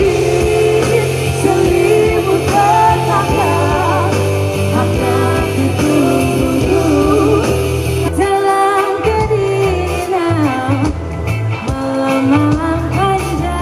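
A pop band playing live with a lead voice singing over it; the backing changes about eight seconds in.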